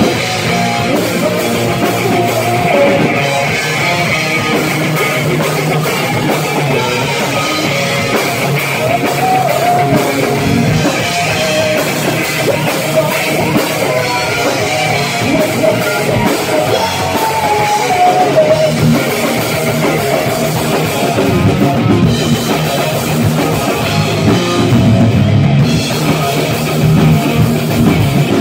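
A live rock band playing loud, with electric guitars and a drum kit.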